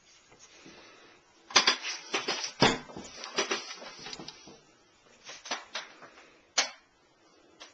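Irregular clicks and knocks: a rapid cluster from about one and a half to four and a half seconds in, then a few single ones near the end.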